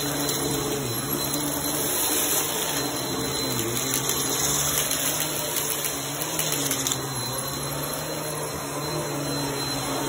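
Bissell bagless upright vacuum cleaner running steadily on carpet, being pushed back and forth. Its motor hum sags slightly in pitch for a moment several times, about once every two to three seconds.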